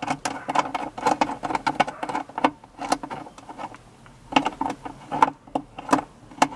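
Irregular small clicks and rattles, a few a second, of bolts and hardware being worked by hand inside a truck's plastic center-console bin.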